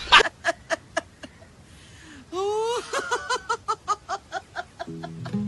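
Laughter in quick repeated bursts that fade within the first second, then a new laugh that starts with a rising high whoop about two seconds in and runs on in fast, even pulses. Music with steady low notes comes in near the end.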